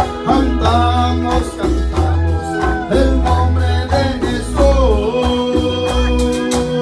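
Worship chorus of Latin American evangelical church music: a voice singing over bass, keyboard and a quick, steady percussion beat. Near the end the voice drops out and a single keyboard note is held.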